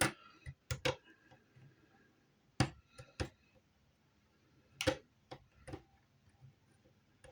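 Scattered light clicks and taps, about nine of them at irregular intervals, from small tools and pieces being handled on a workbench while a feather design is traced onto metal.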